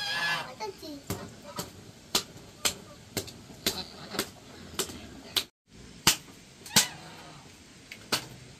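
A series of sharp knocks, about two a second, with a brief total dropout of the sound in the middle. A faint cat-like meow is heard near the start.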